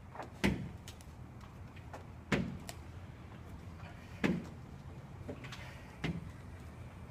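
Four sharp knocks, evenly spaced about two seconds apart, each with a short low thud, over a faint steady hum.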